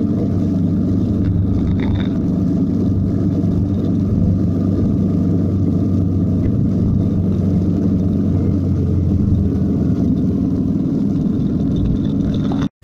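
Motorcycle riding along at around 55–60 km/h, heard from its onboard camera: a steady low rumble of engine and wind that cuts off abruptly near the end.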